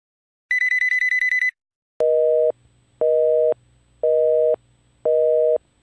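A telephone's electronic trill ring, about a second long, followed by a busy signal: a two-note beep, half a second on and half a second off, four times. The call is not getting through because the line is busy.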